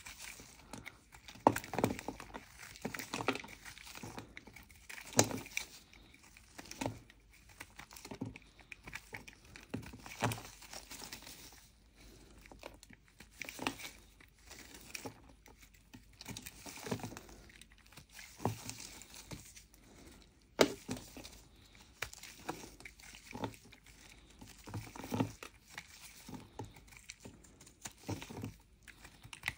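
Snap-off utility knife blade scraping and shaving the crust off a lump of Mokko clay, with irregular scrapes, crackles and crumbs breaking away.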